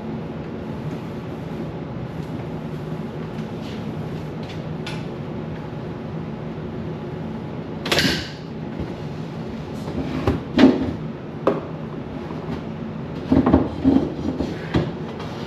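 Knocks and clunks of refrigerator shelves and containers being handled and set down during cleaning, over a steady low hum. There is a short hissing rush about halfway through, and most of the knocks come in the second half.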